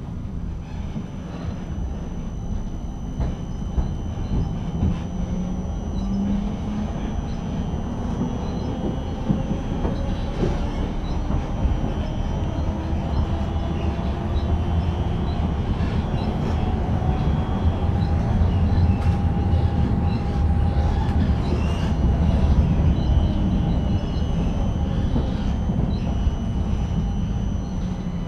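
Tram heard from inside the car as it pulls away and gathers speed: a rising whine climbs in pitch over the steady rumble of the wheels on the rails, getting louder toward the later part.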